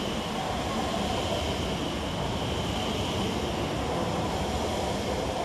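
Class 345 electric multiple unit moving slowly along the platform: a steady rumble with a faint high electrical whine over it.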